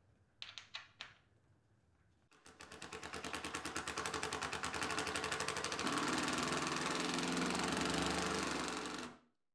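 A few small metal clicks, then a 20 V cordless drill/driver driving a brass threaded insert into a wooden tabletop: its motor runs for about seven seconds with a fast, even pulsing, the note drops and grows louder partway through, and it stops abruptly.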